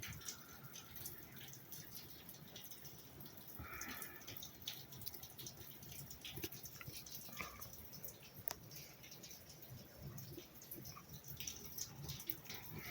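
Heavy rain falling outside, heard as a faint steady hiss with many irregular drips and splats.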